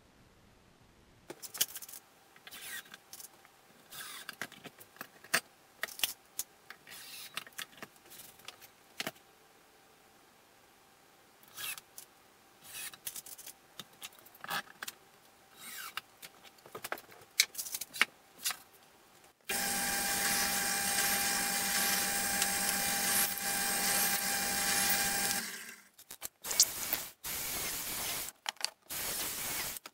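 Scattered clicks and knocks of tools and parts being handled on a workbench, then a cordless drill running steadily for about six seconds, followed by a few short start-stop bursts of the drill boring into wood.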